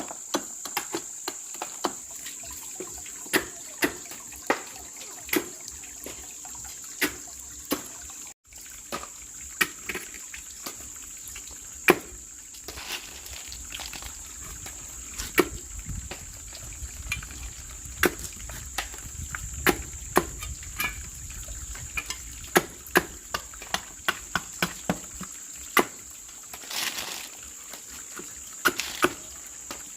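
Irregular sharp clicks and taps, a few to several seconds apart, over a steady high-pitched insect drone.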